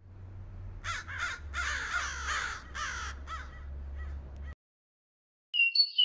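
Crows cawing, several harsh calls in quick succession that trail off after a couple of seconds. Near the end, a small songbird starts a few high, clear whistled notes.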